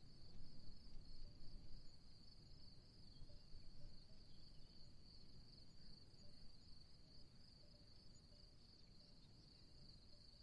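Faint insect chorus, a steady high-pitched chirring, over a low rumbling noise that is a little louder in the first couple of seconds.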